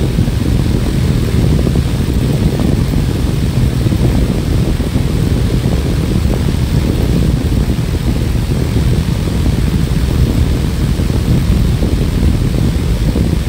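Small wind-turbine propeller spinning at a steady speed, a continuous low whirring rumble that neither rises nor falls.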